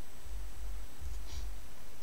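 Microphone room noise between spoken remarks: a steady low rumble under a faint even hiss, with one faint short rustle just over a second in.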